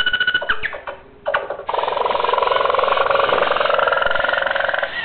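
Roboquad toy robot giving a short electronic beep, then a buzzing whir from about a second and a half in that lasts about three seconds, its pitch rising slightly.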